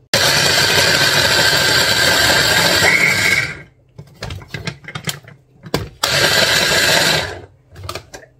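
Electric mini chopper running with half an onion and a garlic clove in it: the motor runs in two pulses, a long one of about three and a half seconds and a shorter one of just over a second, with light knocks and clicks between them.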